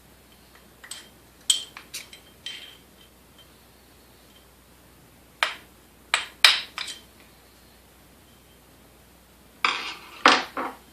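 Hand tools clinking and knocking against the metal parts of a coffee grinder while it is being taken apart, in three short clusters of sharp metallic clicks, some with a brief ring.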